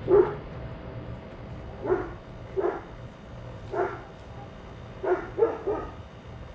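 A dog barking repeatedly, about seven short barks spaced a second or so apart, with three in quick succession a little past the middle.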